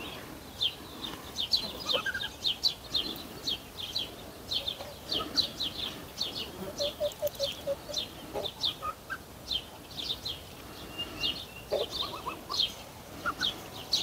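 Birds chirping: a steady stream of short, high, falling chirps, several a second, with a few lower clucking calls from poultry now and then.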